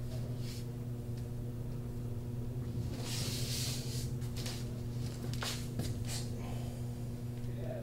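Steady low electrical hum of a small room, with a brief rustle about three seconds in and a few soft knocks around five to six seconds, as a person stretches against the wall.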